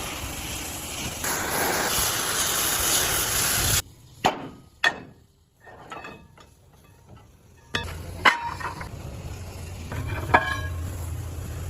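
Factory metalworking noise: a steady loud machining or grinding noise stops abruptly, followed by a few sharp metal knocks and clanks over a low machine hum.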